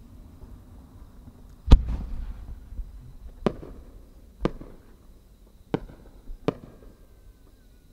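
Japanese aerial firework shells going off: five sharp bangs, the first and loudest about two seconds in with a low rumble trailing after it, the other four following over the next five seconds.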